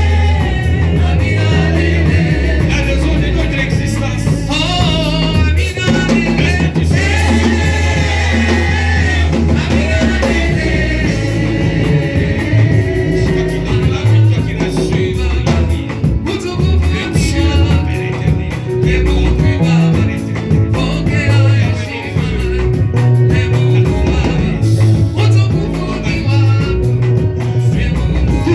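Live church worship music: a band with drum kit and a strong bass line, with voices singing a hymn.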